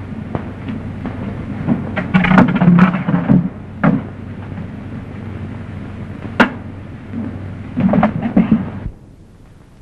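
Brawl between men: wordless shouting and yells, with sharp blows landing about four seconds and six and a half seconds in, over the steady hum and hiss of an old film soundtrack. The commotion cuts off about nine seconds in, leaving only the hiss.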